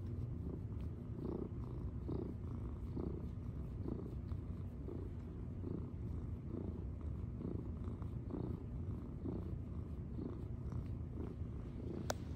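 Domestic cat purring steadily while being stroked under the chin, the purr swelling and easing about once a second with its breathing. A single sharp click near the end.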